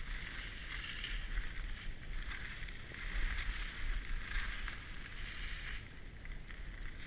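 Skis hissing and scraping over packed snow, rising and falling in swells, with wind rumbling on the microphone.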